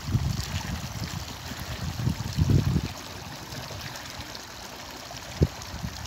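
Outdoor ambience by open water: a steady hiss with uneven low rumbling, loudest a couple of seconds in, and one short thump about five and a half seconds in.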